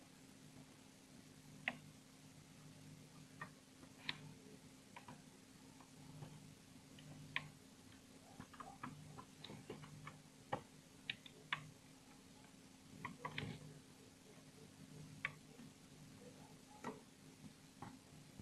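Faint, irregular small clicks and ticks of a hook and rubber bands against the plastic pegs of a bracelet loom, as bands are lifted and looped from peg to peg, over a low steady hum.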